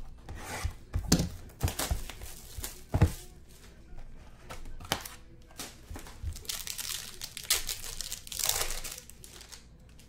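Plastic wrapping being torn off a sealed trading-card box and crinkled by hand, loudest in a long crackling stretch in the second half. A few sharp knocks come from the box being handled in the first three seconds.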